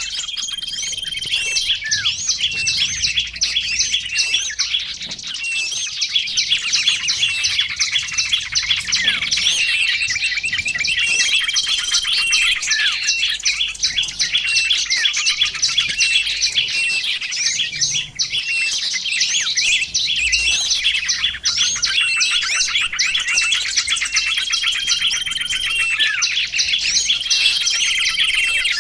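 Small songbirds chirping and trilling without a break: a dense stream of fast, high-pitched calls repeating over and over.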